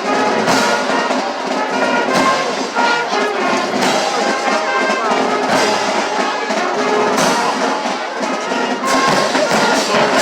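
Brass band music: trumpets and trombones playing a tune together over drums.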